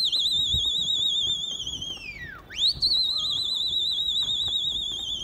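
Pigeon flyer's loud whistle: two long, warbling blasts, each held at one high pitch and falling off at the end, signalling the flock of pigeons in the air.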